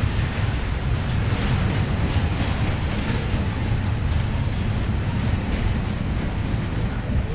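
Double-stack container well cars of a Union Pacific intermodal train rolling past, a steady low rumble of steel wheels on rail.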